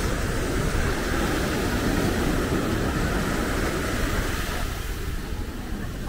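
Steady rushing outdoor background noise, heaviest in the low end, with no distinct events; it eases slightly near the end.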